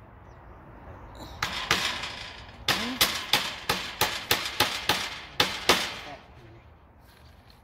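Hand hammering on a wooden frame: two blows, then a quick run of about a dozen sharp strikes at roughly three a second, each with a short ring.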